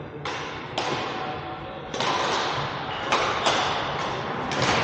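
Badminton rackets hitting a shuttlecock in a rally: about six sharp hits at irregular intervals, each ringing on in the echo of a large gymnasium.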